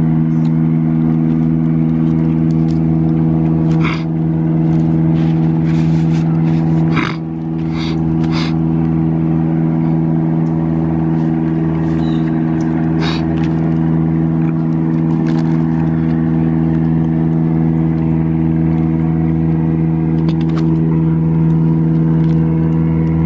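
A steady motor hum with several even tones, unchanging throughout, with a few short crackles or rustles, four of them in the first half.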